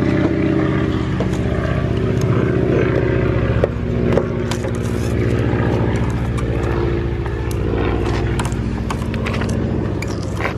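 A car engine idling steadily, with scattered small clicks and scrapes of hand work on the car's body.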